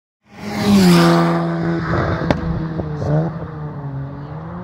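A track car at full throttle passes close by, its engine note dropping in pitch as it goes past. Around three seconds in the revs climb and break, as at a gear change, and the engine note then fades as the car pulls away down the straight. A sharp click comes a little over two seconds in.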